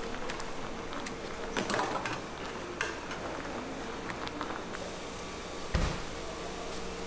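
Kitchen utensils and cookware clicking and knocking at irregular moments over a steady mechanical hum, with one heavy low thump about six seconds in.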